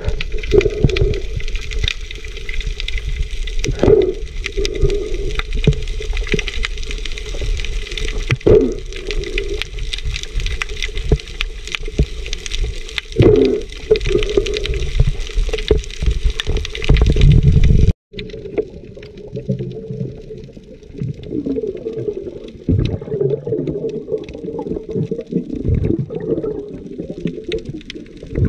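Muffled underwater noise picked up by a camera below the surface: a dense rumble and hiss of moving water and bubbles, swelling briefly every few seconds. About 18 seconds in it changes abruptly to a quieter, thinner underwater wash.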